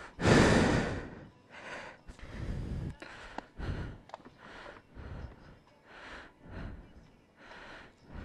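A person breathing heavily close by. There is one loud huff lasting about a second at the start, then a string of shorter breaths roughly every second.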